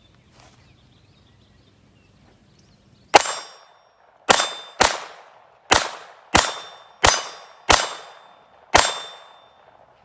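Eight sharp metallic bangs in an uneven series starting about three seconds in, each ringing out for about half a second.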